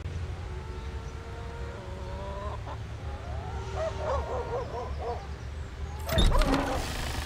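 Cinematic intro sound design for a music-video teaser: a steady low drone with wavering pitched calls over it from about two seconds in, and a loud booming hit about six seconds in.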